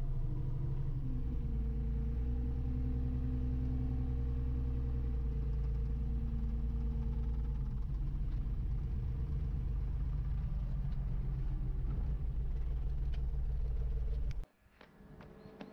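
Wheel loader's engine running steadily, heard from inside the cab, then switched off and cutting out suddenly near the end; a few faint clicks follow.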